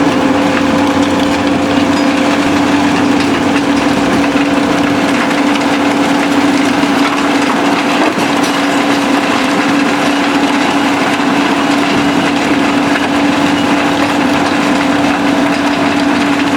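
SBM impact crusher running steadily as it breaks up concrete: a constant drone with the noise of rubble crunching and rattling through it, mixed with the diesel engines of the excavator feeding it.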